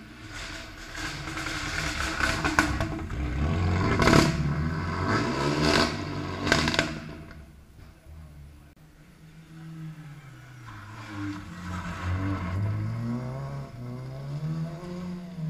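Rally car engine revving hard through the gears on gravel, with four sharp cracks, then fading. After a quieter gap of a few seconds, the next rally car approaches, its engine note rising and falling as it shifts and brakes towards the hairpin.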